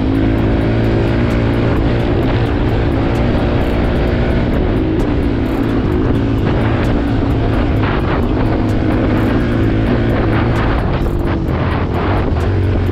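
Dirt bike engine running at a steady, even pitch while riding.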